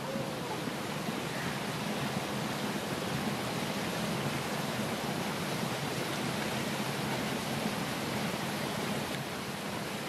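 Waterfall: a steady rush of falling water.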